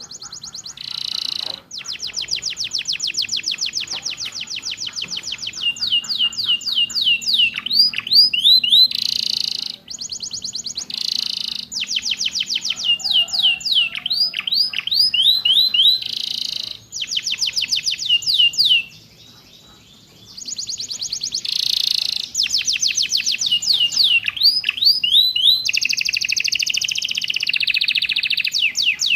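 Domestic canary singing fast, rattling trills and runs of sharp falling chirps, a song filled with learned ciblek and prenjak phrases. The song breaks off briefly about two-thirds of the way through.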